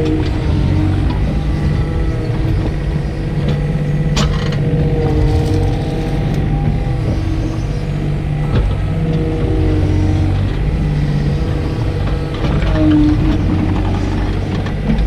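Takeuchi TB125 mini excavator's diesel engine running steadily under load, heard from the cab, with the hydraulics whining in shifting pitches as the arm and thumb work. A couple of sharp knocks come about four and eight seconds in.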